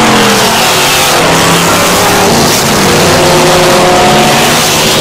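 Historic racing cars at high revs on a circuit. One engine note falls away around the start as a car passes, and from about halfway the engines of the next cars, a Jaguar E-type among them, come in as they approach at speed.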